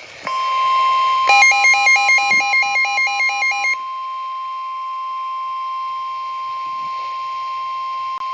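NOAA Weather Radio warning alarm tone: a steady 1050 Hz tone. About a second in, a louder alternating two-note beeping pulses about four times a second over it for roughly two and a half seconds, then the steady tone carries on alone. It signals that a warning, here a severe thunderstorm warning, is about to be read.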